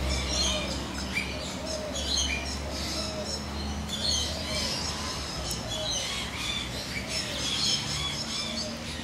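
Many small birds chirping and twittering without pause, with a lower call repeating about once a second.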